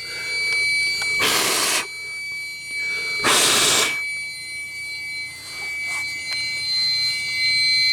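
Fire alarm control panel's piezo sounder giving a steady high-pitched tone: the system is back in alarm because smoke is still in the smoke detector. Two short hissing rushes of air break in about a second and three seconds in.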